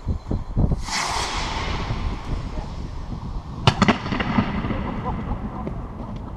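Firework rocket launching with a loud rushing whoosh that fades away, then bursting with a few sharp bangs a few seconds later. Both echo at length off the concrete walls inside the cooling tower. A few low thuds come just before the launch.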